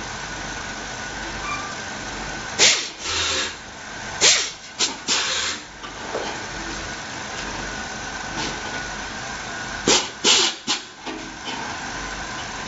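Cordless electric screwdriver run in short bursts on the screws of a gas water heater's sheet-metal frame, in two groups: a few seconds in and again about ten seconds in.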